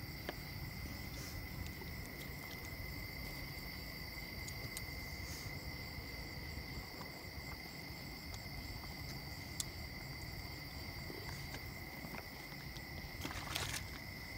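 Steady high-pitched chorus of crickets, a constant drone at two pitches.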